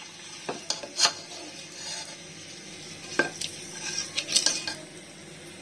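Slotted spatula scraping and clinking against a pressure cooker pot as boiled eggs are scooped out of hot masala oil, with a few scattered knocks and a quick cluster of clinks about four seconds in. The oil sizzles faintly on a low flame underneath.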